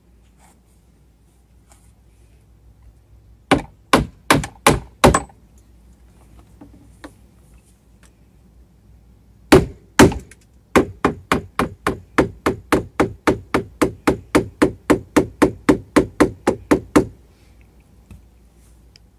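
Hammer blows: four quick strikes, then two heavier ones, then a steady run of about two dozen at about four a second that stops abruptly.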